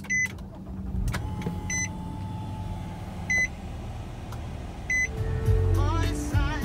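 Nissan warning chime beeping four times, evenly about a second and a half apart, as a 2019 Nissan Maxima is started with its push button. Low engine noise swells in the last second and a half as the V6 cranks and catches.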